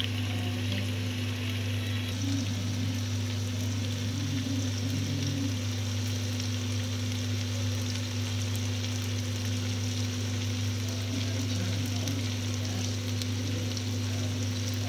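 Chicken livers and potato cubes sizzling in a frying pan as the sauce cooks down, over a steady low hum.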